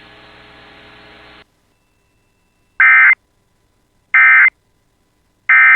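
Emergency Alert System end-of-message code: three short bursts of SAME digital data tones, each about a third of a second long and about a second and a half apart. A faint hum cuts off about a second and a half in, before the bursts.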